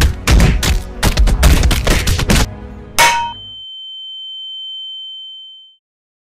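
A rapid flurry of blows and scuffling as several men beat a person on the floor. About three seconds in, one hard hit is followed by a single high ringing tone, an ear-ringing sound effect for a blow to the head, which fades out into silence.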